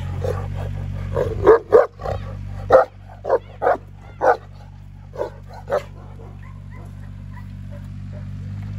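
A large shepherd dog barking: about ten short barks, spaced unevenly and thinning out, stopping about six seconds in. A steady low rumble runs underneath.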